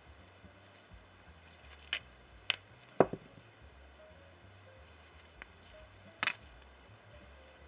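About five small sharp clicks and taps from fingers handling tatting thread and a clear plastic tatting shuttle, the loudest about three seconds in, over a faint low hum.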